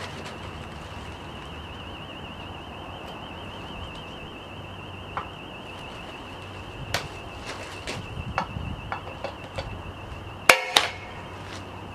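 Hilti DX460 powder-actuated tool firing once, a sharp shot about ten seconds in as it drives a fixing into steel, with a second smaller crack a moment later. A few light clicks and knocks come before it, and a steady warbling high tone runs underneath throughout.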